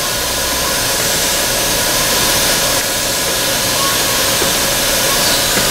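Steady blower hiss from a stopped electric train's fans and equipment, with a faint steady hum underneath.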